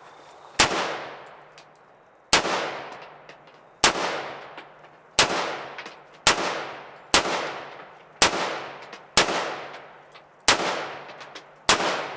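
Rifle fired shot after shot, about ten single shots a second or so apart, each followed by a trailing echo.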